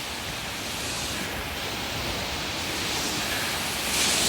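Hurricane wind rushing steadily, swelling louder with a stronger hiss about four seconds in as a gust comes through.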